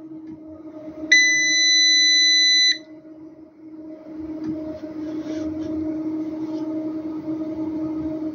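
A 5.5 kW Ecco solar inverter powering up: its buzzer gives one loud, steady beep about a second in, lasting about a second and a half. Under the beep the inverter hums steadily, and a hiss grows louder under the hum from about four seconds in.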